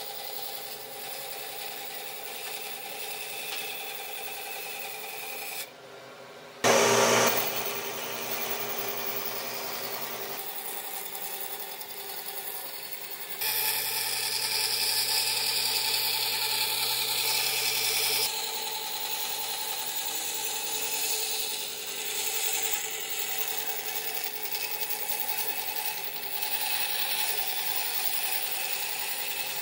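Band saw running and cutting lengthwise through an old, weathered railway sleeper, the blade rasping steadily through the wood. The sound changes abruptly several times, with a brief louder burst about seven seconds in.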